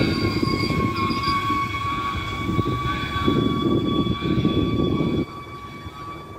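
Train at the platform running, with a low rumble and a steady high whine. The rumble drops off sharply about five seconds in.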